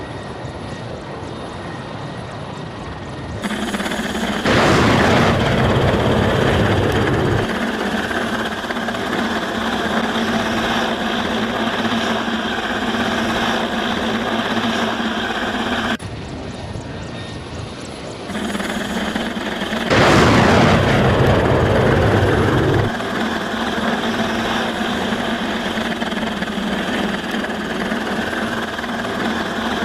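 Mi-28N attack helicopter heard from the cockpit: a steady rotor and turbine drone with a low hum. Twice, about four seconds in and again about twenty seconds in, a loud rushing blast falls in pitch over about three seconds as a guided missile is launched.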